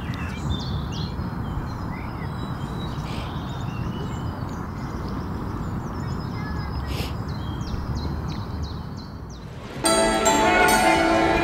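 Outdoor ambience: a steady background hiss with birds chirping, a run of short high chirps. About ten seconds in, music starts suddenly.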